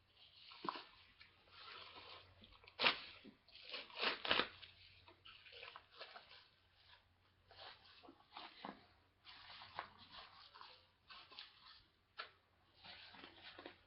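A mail-order package being handled and torn open: irregular crinkling and tearing of packaging, with a few sharp knocks.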